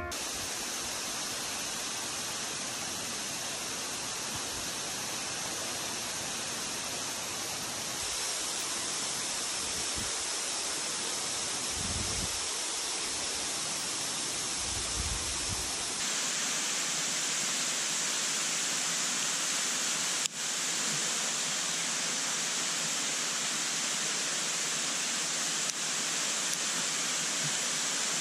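Steady rushing noise with no distinct events, its tone shifting abruptly about 8 and 16 seconds in, with one brief click near the 20-second mark.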